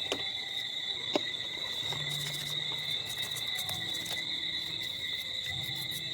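Insects trilling steadily, a high continuous pitch in the background, with a couple of faint clicks near the start.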